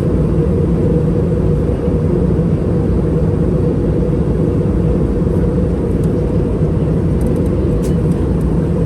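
Steady low roar of cabin noise inside an Airbus A319 airliner: engine and airflow noise, unchanging throughout.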